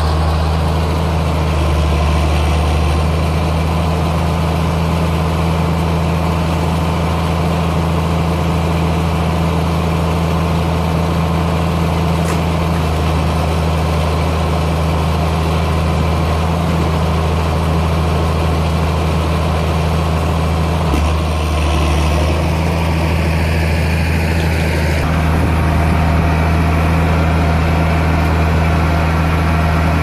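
Ford 8830 tractor's six-cylinder turbo diesel running steadily under load while pulling a working Claas round baler. A faint whine falls in pitch about two-thirds of the way through.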